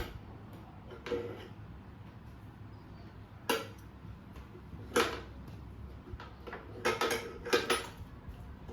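Dishes and kitchen containers knocking and clinking as they are handled and set down: a handful of separate sharp knocks, spaced out at first and coming closer together near the end.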